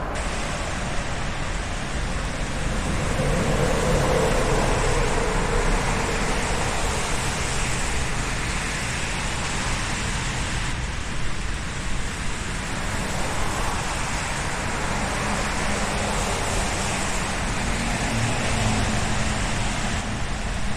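Road traffic noise: a continuous wash of passing cars with tyre and engine noise, swelling as a vehicle passes a few seconds in.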